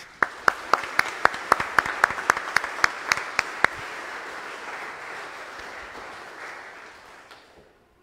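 A congregation applauding, with loud, close hand claps about four a second from one person beside the microphone for the first few seconds. The applause fades out near the end.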